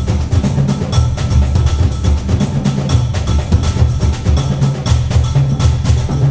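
Background music with a steady, driving percussion beat over heavy bass.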